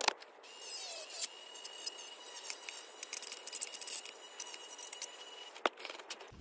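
Handheld Dremel rotary tool running with a steady high-pitched whine as its bit grinds into a plastic model car body, with scratchy scraping as it cuts. The whine stops near the end with a click.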